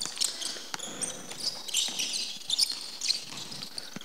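A basketball being dribbled on a hardwood gym floor, bouncing at irregular intervals, with rubber-soled basketball shoes squeaking in short high-pitched chirps as players cut and defend.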